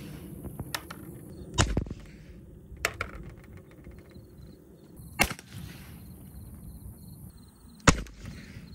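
Four sharp shots from an AEA Harpoon .45 caliber PCP air pistol, one to three seconds apart, the last the loudest.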